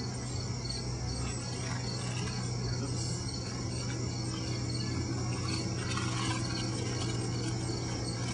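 Steady high-pitched chirping of insects, with a steady low hum underneath.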